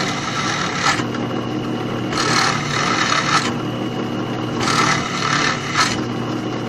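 Drill press running steadily at about 2230 RPM as round bar stock spinning in its chuck is fed onto a 7/32 drill bit clamped in the vise. The cutting adds a scraping hiss in spells: one that ends about a second in, then two more of about a second each. There is a little chattering, which the maker fears may put the hole slightly off centre.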